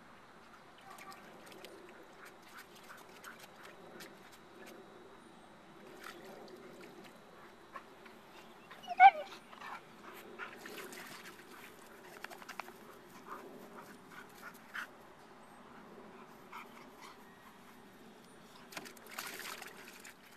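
Dog wading in a plastic kiddie pool, its paws sloshing and splashing the water in scattered bursts, with two longer splashes about eleven seconds in and near the end. About nine seconds in the dog gives one short, loud cry.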